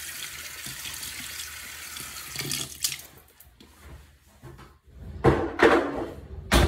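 Bathroom sink tap running steadily, shut off about three seconds in. A few loud, brief noises follow near the end.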